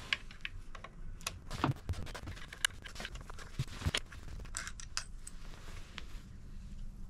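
Irregular small clicks and scrapes of metal and plastic as the carburetor's long mounting bolts and the carburetor itself are worked loose by hand on a Tohatsu 6 hp outboard, with a few sharper ticks about 2, 3 and 4 seconds in.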